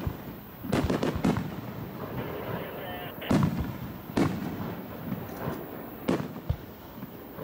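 Aerial firework shells bursting overhead: about six irregularly spaced booms, each followed by a rumbling echo.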